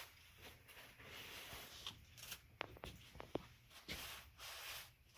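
Faint rustling of a cloth or paper towel wiping excess spray lubricant off a door hinge, with a few light clicks.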